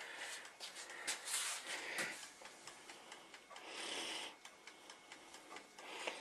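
Crisp tortilla-chip-coated chicken fillet handled and broken open by hand close to the microphone: scattered crackles and clicks, with a longer burst of crackling about four seconds in.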